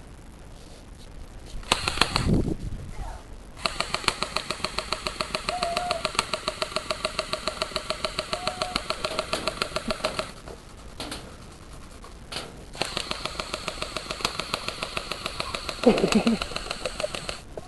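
Airsoft gun firing on full auto in two long bursts, a rapid, even rattle of shots over a steady mechanical whine. A short loud sound comes about 2 seconds in.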